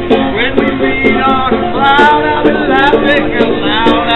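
Live street music: a man singing and playing a banjo.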